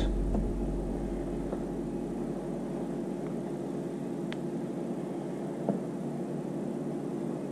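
Steady electrical hum with an even background hiss, with a couple of faint ticks about four and six seconds in.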